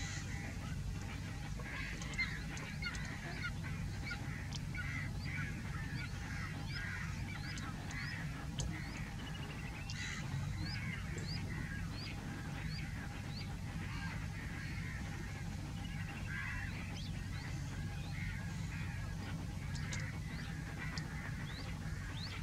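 A chorus of many birds calling, dense and continuous, with short rising chirps repeating every half second or so, over a steady low rumble.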